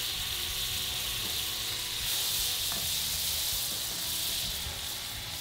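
Butter sizzling steadily on a cast iron griddle heated to about 450°F, with bread slices lying in the melted butter.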